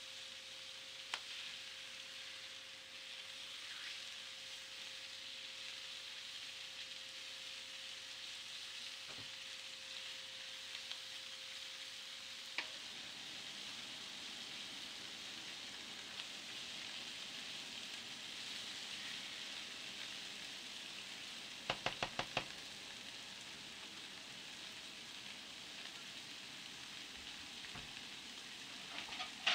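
Steady hiss of room tone with a faint steady hum that stops partway through, and a few light knocks, including a quick run of about four near two-thirds of the way in.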